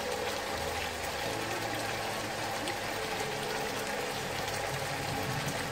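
Soy sauce and vinegar adobo sauce simmering in a wok with string beans and ground meat, a steady even hiss.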